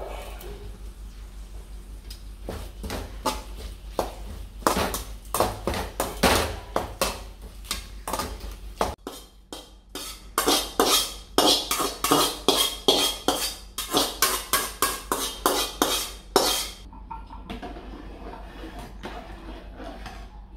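A steel spoon stirring rice in coconut milk inside a metal cooking pot, clinking and scraping against the pot over and over. The clinks stop a few seconds before the end.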